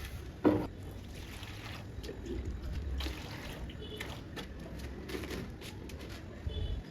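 Wet plaster being worked on a wall with a trowel: irregular wet scraping and small clicks, with one sharper knock about half a second in.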